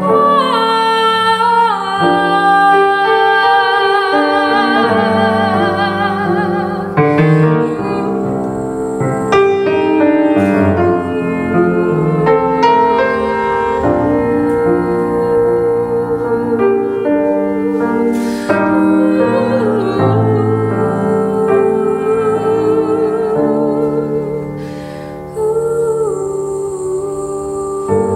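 A woman singing in a classical, operatic style with a wide vibrato, accompanied by piano. The music dips briefly in loudness a few seconds before the end, then comes straight back in.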